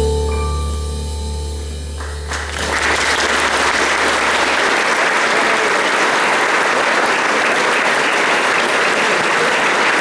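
A band's last sustained chord rings out and fades, then an audience applauds steadily from about two seconds in.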